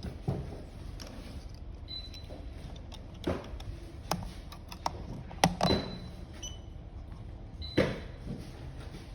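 Hands handling a gadget and its packaging: scattered clicks and knocks, the loudest about five and a half seconds in and again near eight seconds, over a steady low hum.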